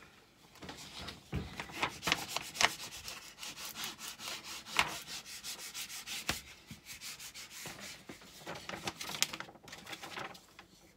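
A large diamond-painting canvas sheet rustling and rubbing as it is lifted and handled by hand, in irregular crinkling strokes with the loudest a few seconds in.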